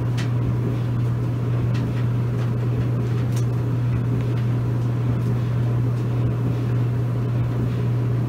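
Maytag clothes dryer running: a steady low hum from the drum motor and blower, with a few faint ticks, while a blanket tumbles in the drum still wet at this stage of the sensor-dry cycle.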